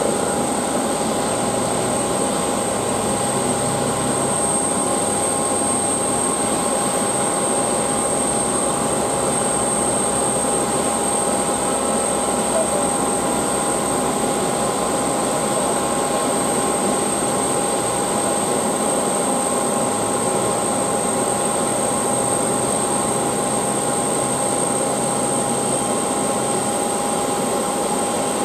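Steady aircraft machinery noise on an airport apron: an unchanging whine with several fixed high tones over a rumble.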